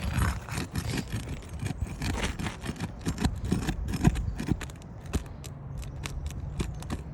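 Asphalt shingles being pried up with a flat tool: scraping and a run of sharp clicks and ticks as the tool works under the tabs and the shingle tears.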